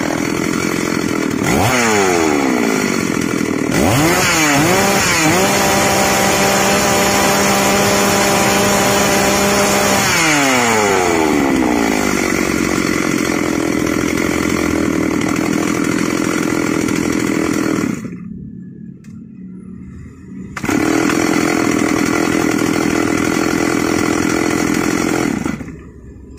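Freshly rebuilt Stihl MS 381 two-stroke chainsaw on a test run: it idles, revs up twice, holds high revs for about four seconds, then winds back down to idle. It stops about two-thirds of the way through, starts again a couple of seconds later, idles, and is shut off near the end; the owner judges that it runs normally.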